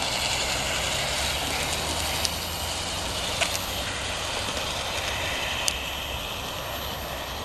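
Aristocraft G-scale Eggliner motor car running along outdoor track, pulling a boxcar and caboose: a steady running noise from its motor and wheels, with three sharp clicks.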